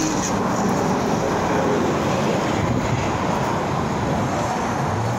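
Wind buffeting the phone's microphone over a steady wash of road traffic.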